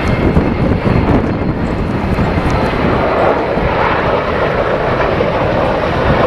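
Aircraft flying past, its engines making a loud, steady noise that grows stronger about halfway through.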